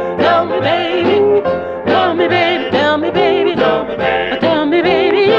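Music: an old rhythm-and-blues vocal-group record, with voices singing over a bass line.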